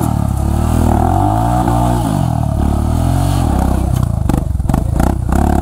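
Off-road motorcycle engine being ridden over rough ground, its revs rising and falling again and again as the throttle is worked. From about four seconds in, a run of sharp clattering knocks joins it.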